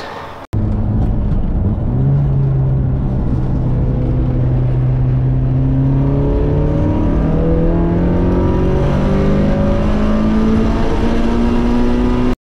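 Turbocharged Mazda Miata four-cylinder engine pulling hard at full throttle, heard from inside the cabin. Its pitch climbs steadily as the revs rise toward about 7,600 RPM, with the wastegate closed and the intercooler pipe disconnected so the turbo spins freely to about 125,000 RPM. It cuts off suddenly near the end.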